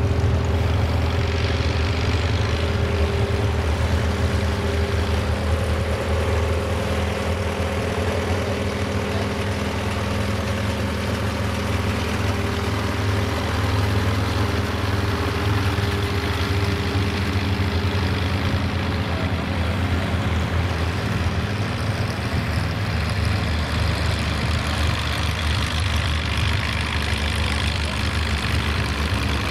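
Allis-Chalmers WC tractor's engine running steadily under load as it pulls a weight-transfer sled down a tractor-pull track.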